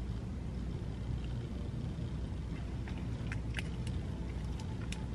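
Steady low rumble of a car's interior, with a few small, sharp clicks about three seconds in and again near the end as lip gloss is applied and the lips pressed together.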